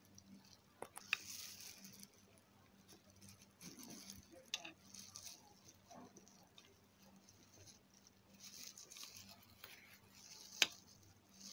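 Faint scraping of a metal spoon scooping ice cream into a glass mug, with a few sharp clicks of the spoon against the glass, the loudest near the end.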